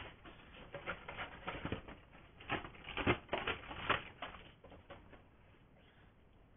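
Irregular hard clicks and taps of hands working on parts at a trailer wheel hub, busiest in the middle and dying away after about four and a half seconds.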